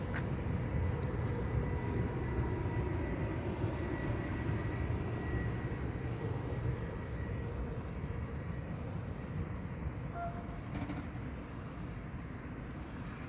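Passenger train with an E.464 electric locomotive rumbling steadily along the tracks, the sound easing off over the last few seconds as the train moves away.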